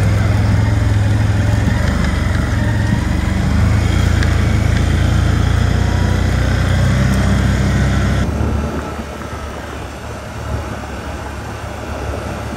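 A vehicle engine running steadily, with a low hum; about eight seconds in it becomes quieter and duller.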